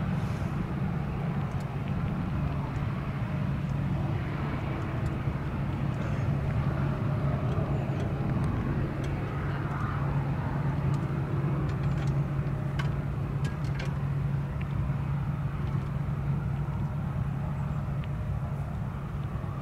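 Boeing 737 turbofan engines at taxi power: a steady low hum over a broad rush that holds at an even level.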